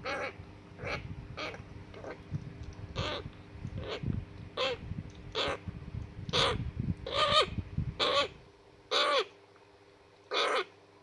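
African grey parrot chick, about 30 days old, giving short repeated food-begging calls while being syringe-fed hand-rearing formula, roughly one call a second, each rising and falling in pitch. The calls grow louder toward the end.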